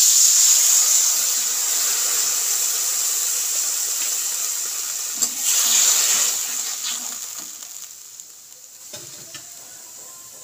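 Water poured from a plastic bottle into hot mustard oil in an aluminium kadai, setting off a loud sizzle that slowly dies down. About six seconds in, a spatula stirs the pan and the sizzle swells again briefly before settling to a quiet simmer.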